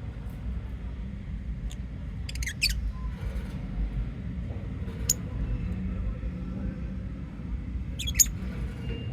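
Lovebirds giving short, sharp, high-pitched chirps: a quick cluster a couple of seconds in, a single chirp about five seconds in, and a louder cluster near the end, over a steady low hum.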